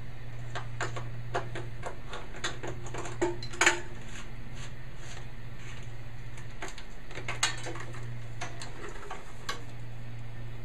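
Irregular light metallic clicks and clinks of small parts and hand tools being handled while an old tractor's ignition switch and wiring are worked loose, the sharpest pair about three and a half seconds in, over a steady low hum.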